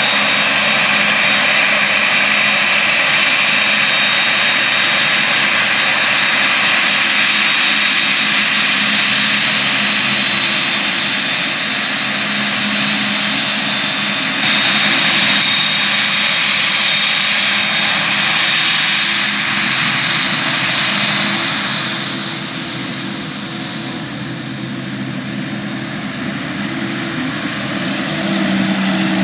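Boeing 787 Dreamliner's twin turbofan engines running at taxi power as the airliner moves along the runway: a steady jet rumble with a high whine held on one pitch. The noise dips briefly in the second half, then swells again near the end.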